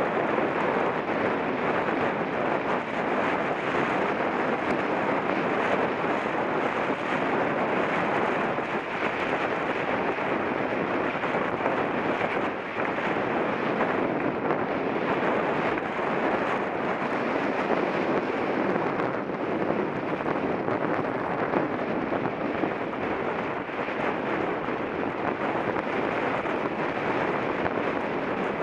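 Steady rush of wind on the microphone of a mountain bike being ridden, with faint rattles and knocks from the bike over rough trail.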